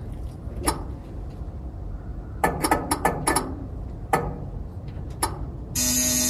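Ignition key and starter solenoid on an old truck's inline-six petrol engine, clicking several times, some in a quick cluster. Near the end the starter motor engages with a loud, steady whir as the long-dead engine is cranked on a new battery.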